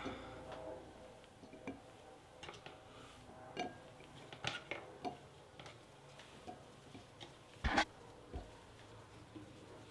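Pieces of celery stalk set down on a ceramic plate: a scattered series of light taps and clicks, with one louder knock about three-quarters of the way through.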